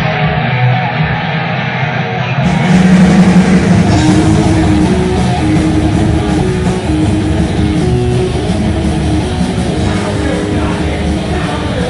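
A live rock band playing loud heavy rock with guitar, growing fuller and louder about two and a half seconds in.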